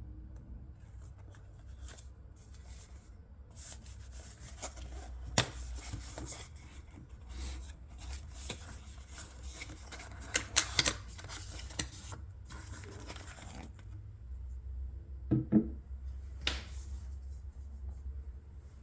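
Fragrance box packaging being handled and opened: rustling and scraping with sharp clicks and taps, loudest about five, eleven and fifteen seconds in, over a low steady hum.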